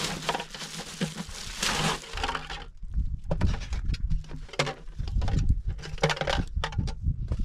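Thin plastic shopping bag rustling and crinkling in irregular bursts as things are pulled out of it and handled.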